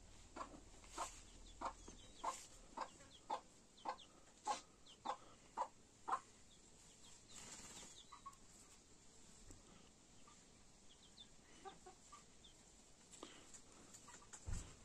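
Bantam chicken clucking in a steady run of short clucks, a little under two a second, for about six seconds, then fainter, scattered calls. A soft low thump comes near the end.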